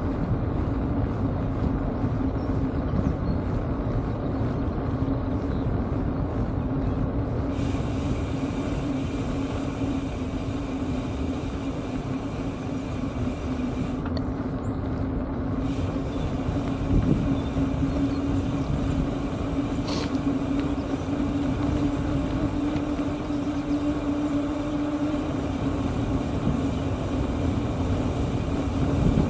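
Steady rolling road noise from a bike riding along an asphalt road: tyre noise with a constant low hum. There is a single brief tick about twenty seconds in.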